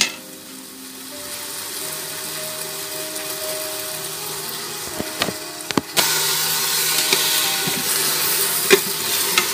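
A frozen block of ground beef sizzling in the dry stainless inner pot of an Instant Pot on sauté, with a plastic paddle clicking and scraping against the pot a few times. About six seconds in, the sizzle jumps suddenly louder and then holds steady, over a faint steady hum.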